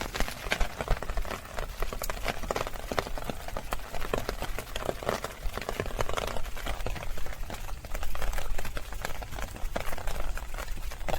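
Rainwater splashing and dripping: a dense, irregular patter of small drops and splashes over flowing water.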